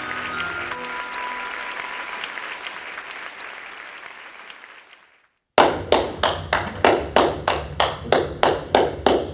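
Applause with the tail of the music dying away to silence. Then hand clapping in a steady rhythm, about three claps a second.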